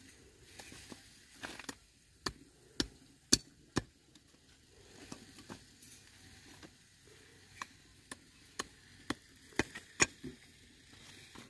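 A run of sharp knocks, about two a second, with a pause of a few seconds midway before they start again.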